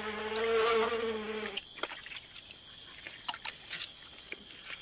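A flying insect's steady buzz that stops suddenly about a second and a half in. After it come scattered soft squelches and clicks from capybaras walking through mud at the water's edge.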